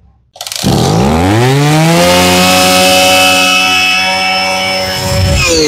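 Robin NB2300 two-stroke brush cutter engine starting and climbing quickly to full revs, held there steadily, then dropping back near the end as the throttle is let off. It is very responsive: "siêu bốc", super punchy.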